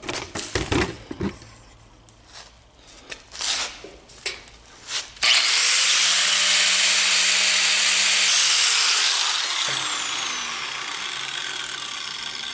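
Angle grinder with a flap disc ('flapper wheel') starting up about five seconds in, its motor whine rising, and sanding the sharp edge of a hole-sawn aluminum disc for about three seconds. It then winds down, its pitch falling as it coasts to a stop. Before it starts there are light clicks and knocks of the grinder and the part being handled.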